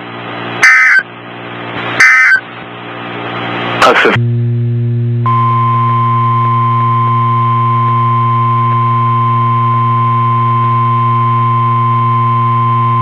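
Weather-radio static broken by two short, loud EAS digital data bursts (SAME tones) in the first two seconds. A click about four seconds in gives way to a steady hum, and about five seconds in the NOAA Weather Radio 1050 Hz warning alarm tone starts: one steady, unwavering pitch.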